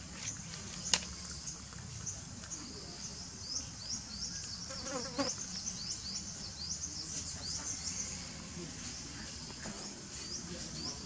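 Rapid high-pitched chirping from unseen small animals, several short chirps a second, over a low steady rumble. A sharp click about a second in and a brief lower call around five seconds in.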